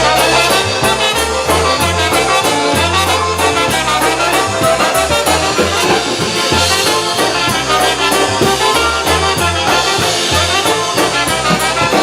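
Polka band playing an instrumental passage of an oberek, brass leading over a bass line that steps from note to note.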